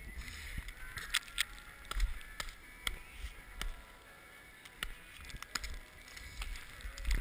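Handling and movement noise on a body-worn action camera moving over snow: scattered clicks and knocks over a low rumble of wind on the microphone.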